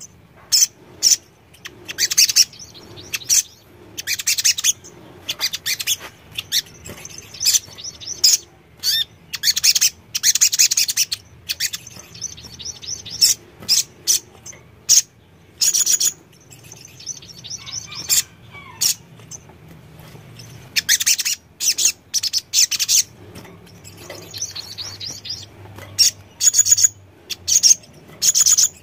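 Sogon (sogok ontong), a small sunbird, singing: short, loud bursts of high chirps and fast rattling trills, repeated every second or so with brief pauses between them.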